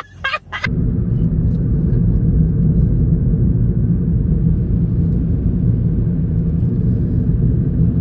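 Steady low rumble of a car in motion, heard from inside the cabin: road and engine noise. It starts abruptly under a second in.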